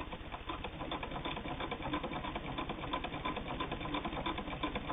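Hand-cranked 3/4-size Singer 99 sewing machine stitching through sheeting: a steady, even run of rapid clicks from the needle mechanism as the crank turns.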